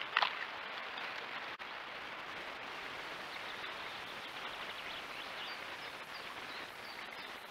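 A steady outdoor hiss with a brief splashy rustle just after the start. From about five seconds in, a small bird gives a series of short, high, thin chirps.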